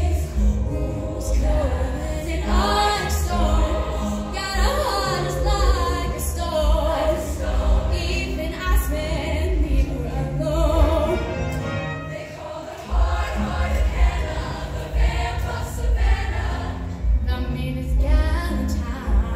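High school show choir singing in full voice over a live band with a heavy, pulsing bass line. The bass drops out for about a second around two-thirds of the way through, then comes back in.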